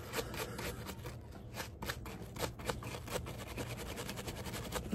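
A small brush scrubbing a cleaned bolt: quick, irregular scratchy strokes knocking off loose oil and grime after a rust dissolver soak.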